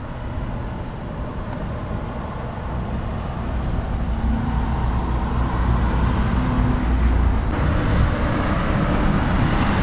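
Electric orbital sander with a dust-extraction hose running against a fibreglass boat hull: a steady motor hum with a rough sanding hiss. It is sanding down the cured epoxy filler in the hull's gouges.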